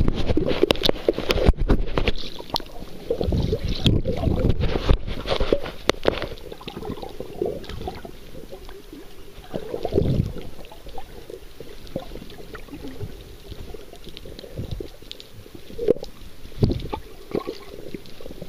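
Underwater sound from a submerged camera: water gurgling and sloshing around it, with irregular clicks and knocks. It is busiest in the first few seconds, with louder swells about halfway through and near the end.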